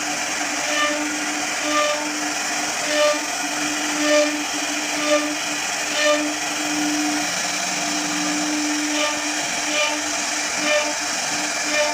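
CNC machine running with a steady whine and hiss, with a short, high, pitched note repeating about once a second.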